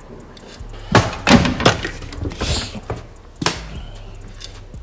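A run of dull thumps and knocks, the loudest about a second in, then a short rustling hiss and one sharp knock a little after three seconds.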